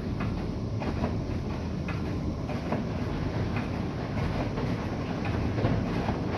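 Bosch i-Dos WGG154A10 front-loading washing machine running: a steady low rumble with irregular knocks and clicks every half second or so.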